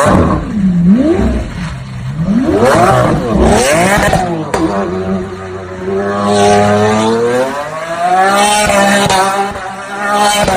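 A Lamborghini engine revved up and down sharply about three times, then held at high revs that climb further and stay up.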